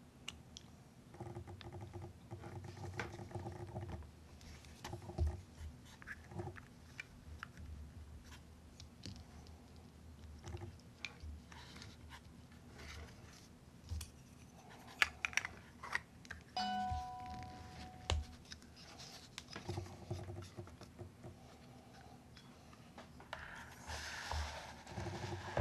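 Light plastic clicks, taps and handling noises as a small aquarium powerhead's impeller and plastic cover are pushed back into place. A short ringing tone sounds a little past the middle, and water sloshes near the end as the pump goes into the water.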